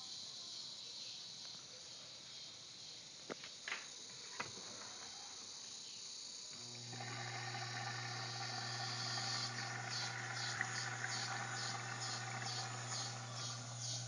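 LG Prime front-loading washing machine beginning its fill for the first rinse. About six and a half seconds in, the water inlet solenoid valve opens with a sudden, steady hum, and water runs in through the detergent drawer. Before that there is only a faint hiss and a few light clicks.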